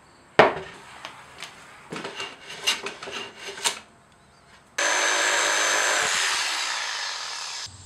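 A sharp knock and a run of small clicks and scrapes as a plywood sheet is handled. About halfway through, a corded circular saw starts cutting through the plywood, running steadily for about three seconds with its pitch sagging slightly, then it cuts off sharply near the end.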